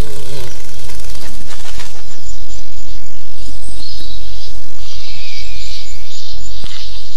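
Soundtrack nature ambience of insects and birds chirping, a busy high-pitched haze that thickens about halfway through, over a steady low hum.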